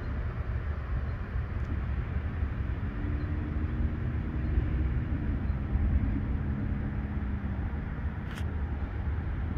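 Outdoor wind rumbling on the microphone ahead of a thunderstorm's gust front, a steady low noise. About three seconds in, a low steady hum of a few tones comes in, steps down in pitch midway and fades out near the end.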